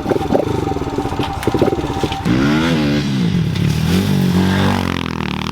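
Pit bike engine running with some clatter, then revved up and back down from about two seconds in before settling to a lower steady run.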